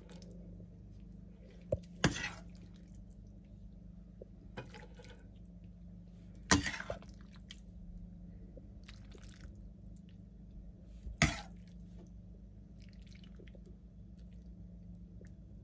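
Stainless steel ladle serving a wet vegetable stew from a metal pan into a ceramic baking dish: wet plops of stew and three sharp clinks of the ladle against pan and dish, about four to five seconds apart, over a steady low hum.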